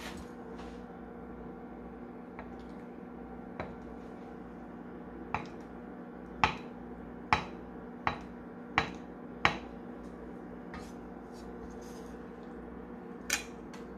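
Chef's knife cutting through soft tofu and knocking down onto a wooden end-grain cutting board: about a dozen separate sharp taps, roughly a second apart and closest together in the middle, over a steady low hum.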